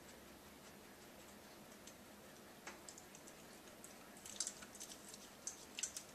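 Faint scattered light clicks and ticks over quiet room tone, a single one near the middle and a quick cluster in the last two seconds.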